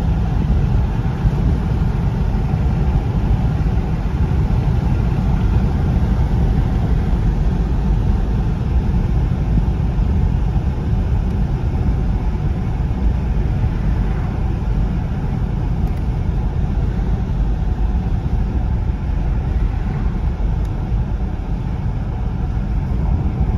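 Steady rumble of a car driving along a road, heard inside the cabin: tyre and engine noise at an even speed.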